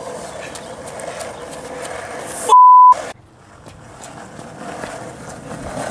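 A single loud, pure, steady electronic beep of under half a second, about two and a half seconds in, set in dead silence like a dubbed-in censor bleep. Around it is a steady hiss of outdoor background noise, quieter after the beep.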